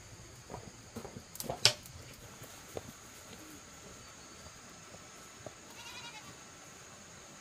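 A few sharp knocks in the first two seconds, the loudest about a second and a half in, then a short animal call about six seconds in, over a faint steady high tone.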